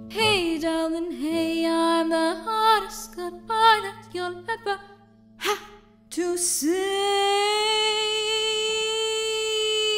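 Female solo voice singing with a wavering, vibrato-like pitch. After a short pause, from about two-thirds of the way in, she holds one long note, with a steady low tone underneath.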